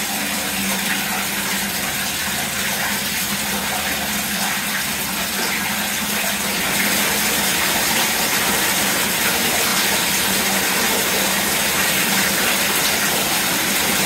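Water pouring from a wall-mounted tap into a clawfoot bathtub as it fills: a steady splashing gush that gets louder about seven seconds in.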